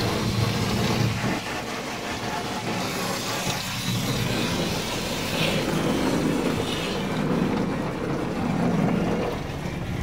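Automatic car wash working over the car, heard from inside the cabin: a steady low noise of water and washing brushes on the car's body and windows.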